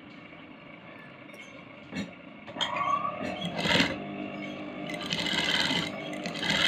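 Sewing machine stitching in several short runs, starting about two and a half seconds in after a faint hum and a single click.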